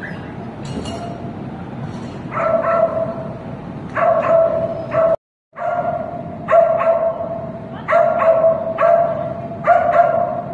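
Icelandic sheepdog barking repeatedly in high, steady-pitched barks, in quick groups of two or three, starting about two seconds in; the sound drops out for a moment about halfway through.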